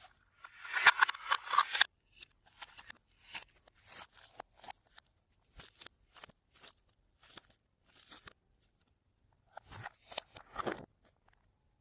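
Fluffy slime being worked by hand. A longer squishing burst comes first, then many small scattered clicks and pops, and another short burst near the end.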